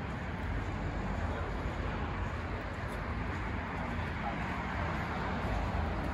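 Steady city street traffic noise: a continuous low hum and hiss of passing road vehicles.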